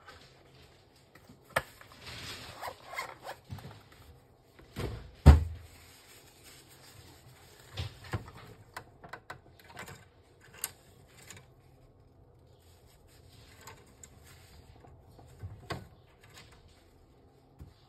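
Hands working inside an open Epson L3150 inkjet printer: scattered plastic clicks and knocks and some rustling around the print-head carriage, with one loud knock about five seconds in.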